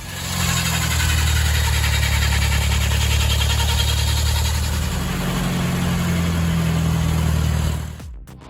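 Horizontal saw running: a steady, loud machine hum with a harsh hiss over it, which cuts off abruptly near the end.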